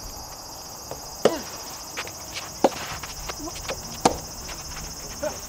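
Soft tennis rally: the soft rubber ball is struck by rackets with sharp pops about every one and a half seconds.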